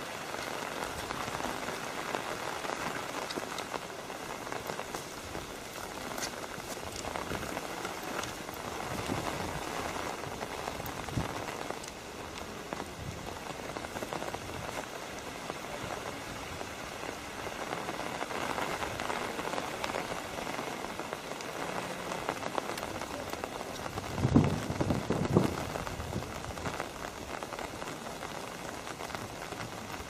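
Steady patter of light rain, an even hiss with scattered small ticks. About 24 seconds in there are a couple of low thumps.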